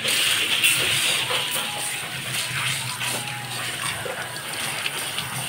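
Water spraying from a salon basin's handheld shower nozzle onto hair and into the sink: a steady hiss, loudest in the first second.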